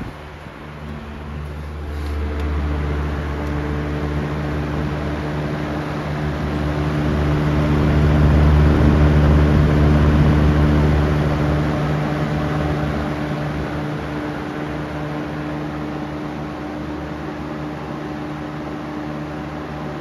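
Lakewood model 200 20-inch box fan running: a steady motor hum over a rush of moving air. It grows louder toward the middle, then settles back to a steady level.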